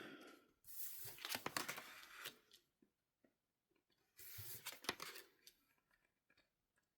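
Tarot cards being handled and turned over on a table: two short bursts of soft rustling and light clicks, the second about two seconds after the first.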